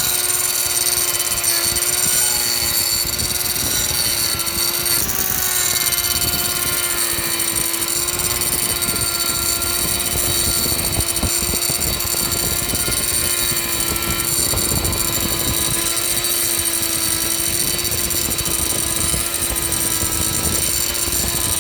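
Angle grinder fitted with a carbide-toothed carving disc, running steadily and milling wood. Its motor whine holds one pitch, wavering slightly as the load changes, over a continuous rasping crackle.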